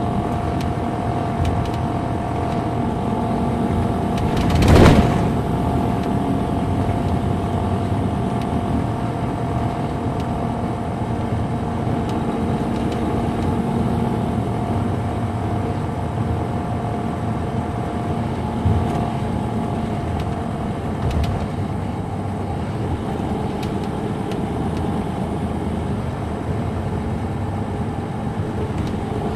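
Caterpillar C13 diesel engine of a 2007 MCI D4500CL coach heard from inside the coach, running steadily with a steady high tone over the drone. A short loud whoosh comes about five seconds in.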